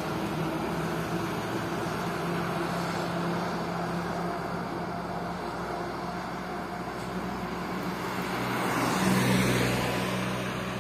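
Road traffic: engine hum and tyre noise from a tanker truck and a motorcycle moving away, then a small car approaching and passing close, louder about nine seconds in.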